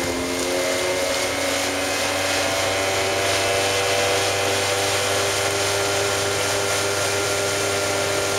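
Motorboat engine running hard at speed. Its pitch rises a little in the first second or so and then holds steady, over a constant rushing noise.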